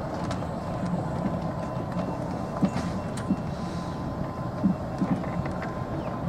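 Golf cart driving along a paved lane: a steady rumble with a faint high whine, and a few sharp knocks and rattles in the middle of the ride.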